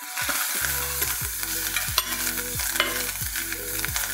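Kale shoots sizzling in butter in a stainless steel frying pan as they are stirred with a metal spoon, with a steady frying hiss and a couple of sharp clicks of the spoon against the pan about halfway through.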